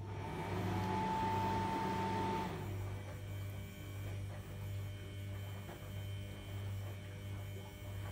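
Low, steady electrical hum, with a brief whirring noise over the first two and a half seconds.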